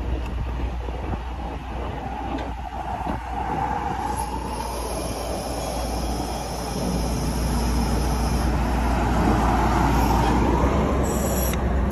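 Versalift VST-50 bucket-truck boom being raised under hydraulic power, with the RAM 5500's engine running to drive the pump. A steady low rumble under a hum that swells and fades, louder in the second half.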